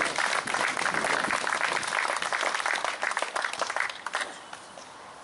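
Audience applauding, a dense patter of hand claps that thins out and stops about four seconds in.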